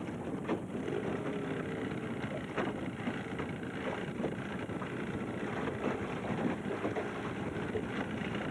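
A boat's outboard motor running steadily at idle, with wind noise on the microphone.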